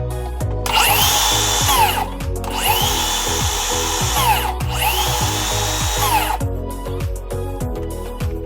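Milwaukee circular saw motor run three times, each time spinning up to a steady high whine and then winding down, after its trigger has been fixed. Background music plays under it.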